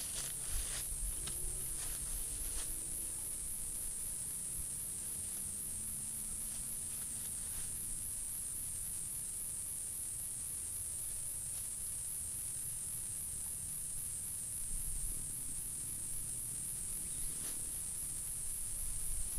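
A steady, high-pitched chorus of chirring insects, with a few faint clicks in the first few seconds.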